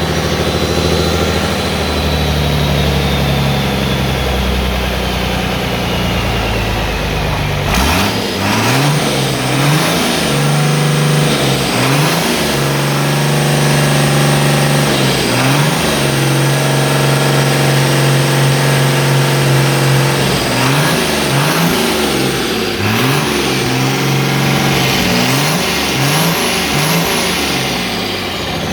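Freshly rebuilt diesel engine on a test run: idling at first, then revved up and let back down again and again from about eight seconds in, with a high whistle that rises and falls with each rev.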